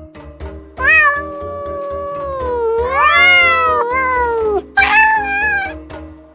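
Cat meowing: one long drawn-out meow that rises in pitch partway through, then a shorter meow, over background music with a steady beat.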